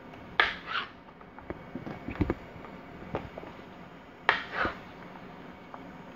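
Slices of yellow crookneck squash tossed into a nonstick frying pan and onto the glass cooktop beside it: two quick double slaps, about four seconds apart, with a few low knocks in between.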